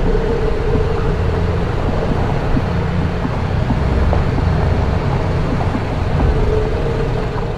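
BMW G 310 GS single-cylinder motorcycle running steadily at road speed, its engine drone under constant road and wind noise.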